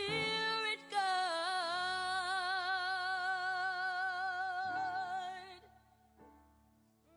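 Music with a singing voice that holds one long note with vibrato, fading out about two-thirds of the way through.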